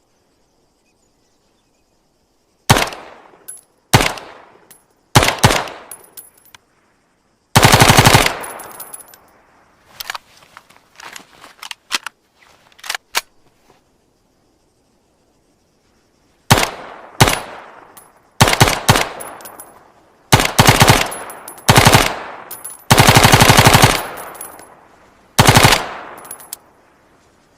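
M2 carbine, a select-fire .30 Carbine rifle, firing single shots and short fully automatic bursts. Each shot or burst is followed by a fading echo. The longest burst comes about two-thirds of the way in, and fainter clicks and a pause fall in the middle.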